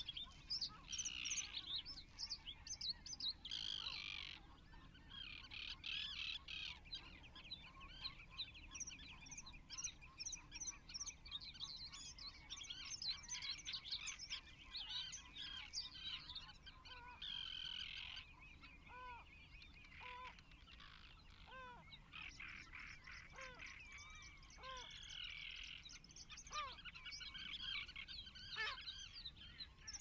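Birds calling: a busy stream of high chirps and twitters throughout, joined about halfway through by a lower short call repeated every second or so.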